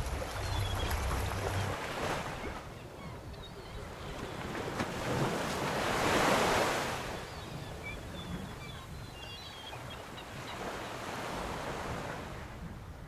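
Sea waves washing, the sound swelling and fading every few seconds and loudest about halfway through, with wind on the microphone.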